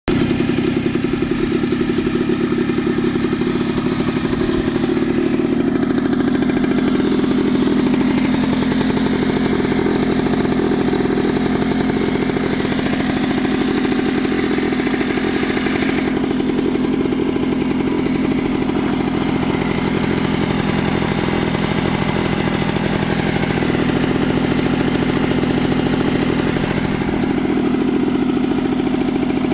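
Honda NSR50's 49 cc two-stroke single-cylinder engine idling steadily, with an even, rapid pulsing that holds at the same speed.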